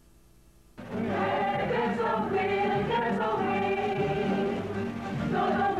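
Theme music with choir singing in sustained chords. It starts suddenly about a second in, after near silence.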